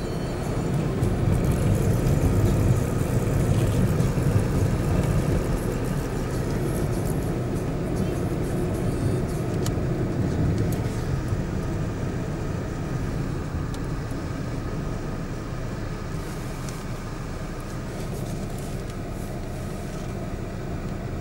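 Steady engine and road rumble of a moving vehicle with passing traffic, louder for the first few seconds as a large lorry goes by close alongside.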